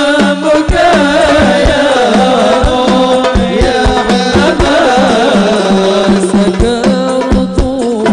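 Live Islamic sholawat (hadroh) music: a male vocalist sings a long, ornamented melody in a high register over a steady beat of hand frame drums.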